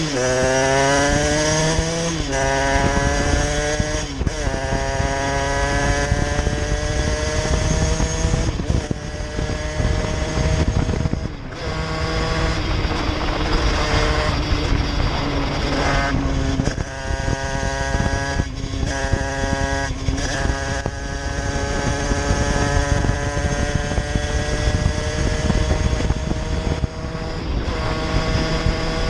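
Derbi moped's 70cc Airsal cast-iron two-stroke engine under way, its pitch climbing as it pulls and dropping sharply at each gear change, several times over. Wind rumbles on the microphone throughout.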